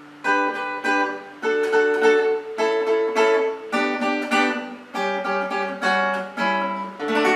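Acoustic guitar playing a short interlude phrase of plucked single notes over ringing bass notes, about a dozen notes in a row, ending on a held chord near the end.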